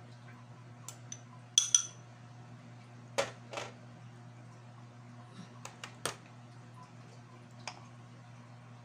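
A metal utensil clinking and tapping against a bowl and dish in a few scattered strikes, the loudest a pair of ringing clinks about a second and a half in. A steady low hum runs underneath.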